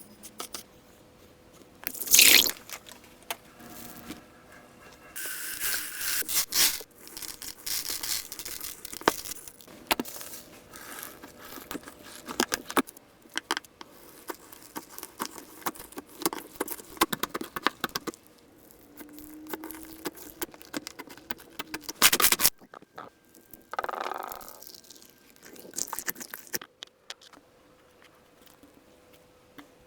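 Slime being handled and squeezed: irregular scraping, crunching and crackling with scattered clicks, and two loud bursts, one about two seconds in and one about 22 seconds in.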